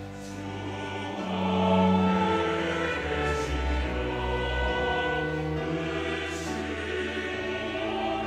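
Mixed church choir singing a Korean hymn in parts, accompanied by a small string ensemble of violins, cellos and double bass with piano. The sound swells louder about two seconds in.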